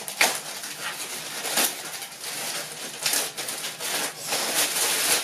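A clothing parcel being opened by hand: irregular rustling and crinkling of packaging, with louder tearing or crumpling swells about every second and a half.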